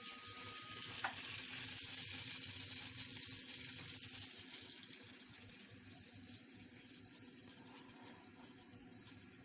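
Food frying in a pan, a steady sizzle that slowly grows fainter, with a light click about a second in.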